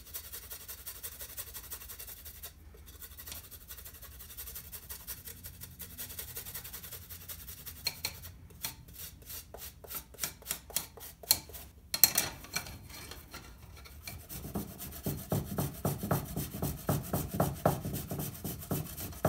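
Fresh ginger root being grated on a long metal rasp grater: continuous rasping scrapes, in places settling into a regular rhythm of about four strokes a second, with one sharp knock partway through.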